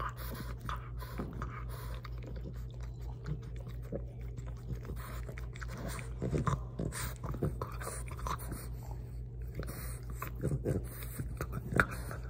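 French bulldog gnawing a rubber chew bone, teeth clicking and scraping on the toy amid piglike snuffling grunts through its flat nose, with one sharp click near the end.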